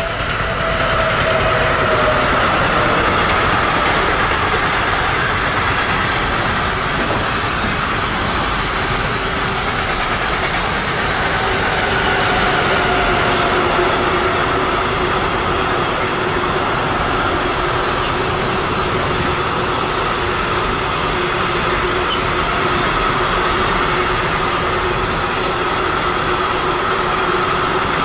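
Electric-hauled freight train of container and tank wagons passing close by. The wheels make a steady rolling rumble on the rails, with a faint whine running through it. The sound swells in the first second or so as the train arrives, then holds steady.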